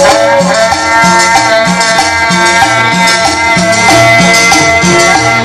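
Cumbia music played loud over a sonidero sound system, with a repeating bass line under long held melody notes and shaker-type percussion.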